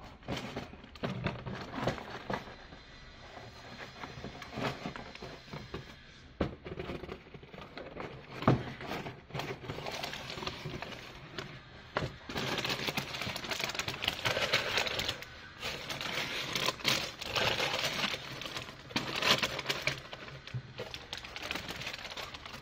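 Plastic bag crinkling and crackling in the hands, in irregular fits and starts, with a longer stretch of continuous crinkling in the second half.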